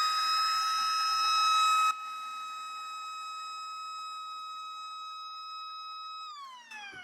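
Hot air rework station blower whining at a steady high pitch. A rush of air noise drops away about two seconds in, and near the end the whine glides down as the blower slows. The technician is using it to cool the board after reseating the audio amplifier IC.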